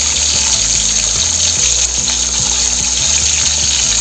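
Bele fish (tank goby) frying in mustard oil in a kadai: a steady sizzle.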